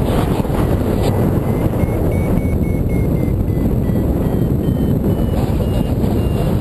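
Steady wind rush buffeting the microphone of a camera on a flying paraglider's risers. Under it, a faint paragliding variometer beeps, its pitch rising and falling and then sitting higher in the last couple of seconds.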